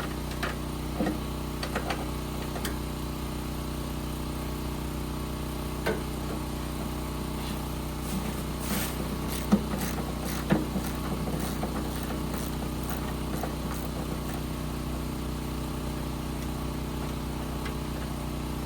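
A small engine running steadily at idle, with scattered clinks and knocks of tools on metal as a jammed wood chipper is taken apart.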